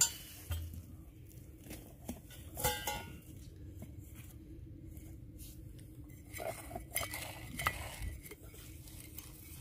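Scattered light metallic clinks and knocks from a rusty steel chain-pulley wheel and its bracket being handled while engine oil is put on it from a plastic bottle.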